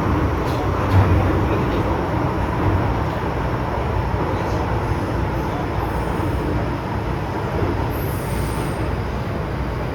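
MTR M-train (Metro-Cammell electric multiple unit) running at speed, heard from inside the car: a steady rumble of wheels on rail and traction equipment, with a faint high squeal near the end.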